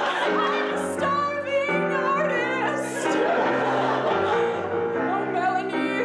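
A woman singing an improvised song over keyboard accompaniment, with held chords changing every second or so under her wavering voice.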